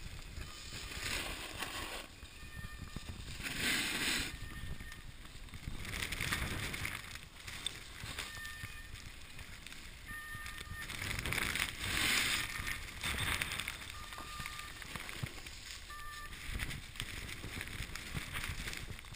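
Snowboard sliding and scraping over snow in surges of hiss as the board turns, with wind rumbling on the microphone.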